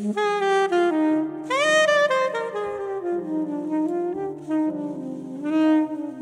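Soprano saxophone playing a jazz melody with a quick upward slide about a second and a half in, over grand piano accompaniment.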